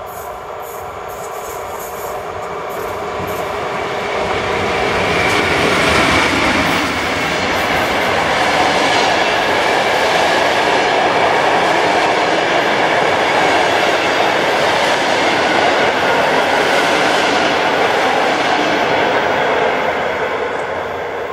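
EP08 electric locomotive and its passenger coaches passing at speed: the running noise of wheels on the track builds as the locomotive draws level about five seconds in, holds loud and steady while the coaches go by, and falls away near the end.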